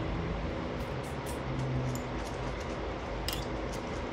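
Eating sounds at a table: a few light clicks and ticks of a spoon and chopsticks against dishes and chewing, over a steady background hum and hiss.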